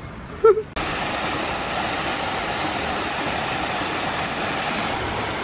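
Steady rushing of water from a small artificial waterfall and stream, starting abruptly about a second in. Just before it, a brief loud voice sound.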